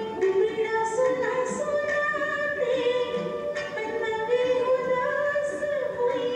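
Female vocalist singing a ghazal with instrumental accompaniment, holding long notes that bend slowly in pitch.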